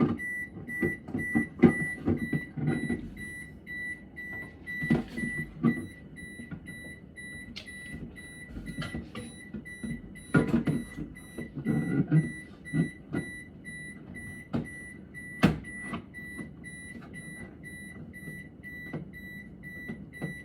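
New refrigerator's electronic alert sounding as a steady high beeping tone, set off by its controls being reset. Scattered clicks and knocks of handling over it, the sharpest click about fifteen seconds in.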